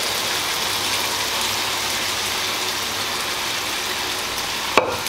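Minced meat and vegetables sizzling with a steady hiss in a hot frying pan as broth is poured in to deglaze it. One sharp knock near the end.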